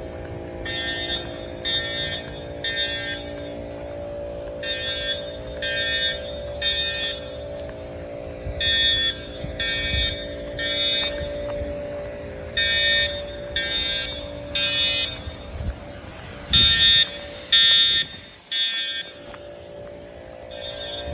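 Edwards Integrity fire alarm horn sounding a buzzing electronic tone in the temporal-three pattern: three short blasts, a pause, then three more, repeating about every four seconds. This is the standard building-evacuation signal.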